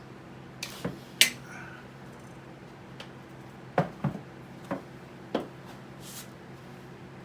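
Handling noise from opening the packing: about six sharp clicks and knocks, the loudest a little over a second in and several close together around four seconds, with two short rustles.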